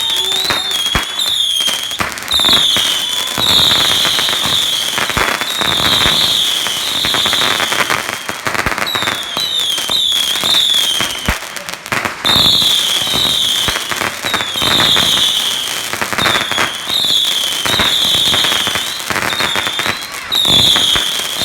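Consumer fireworks whistling over and over, a string of short bending whistles and longer swelling ones, over steady crackling with a few sharp pops.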